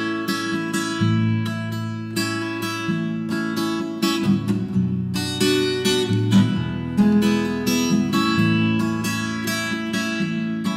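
Instrumental break in a song: acoustic guitar strumming chords in a steady rhythm, with no singing.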